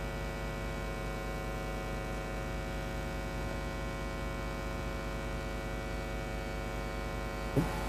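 Steady electrical mains hum in the sound system, a buzz made of many steady tones that holds level throughout. A brief knock sounds near the end.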